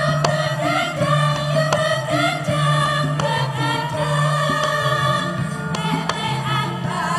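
A choir of female Javanese sinden singers sings together over instrumental accompaniment, with steady low notes underneath and regular percussive strikes keeping the beat.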